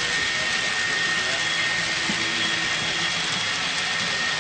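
HO-scale model trains running on the layout: a steady whirring hiss of small metal wheels rolling on the track, with a faint high, even whine from the locomotive motors.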